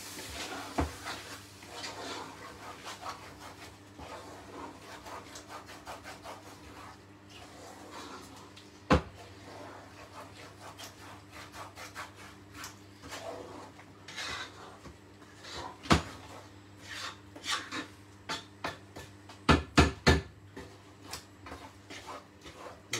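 Wooden spoon stirring and scraping through thick chili con carne in a metal pot, a continuous rubbing scrape. A sharp knock comes about 9 seconds in and again about 16 seconds in, and a quick run of knocks comes near the end.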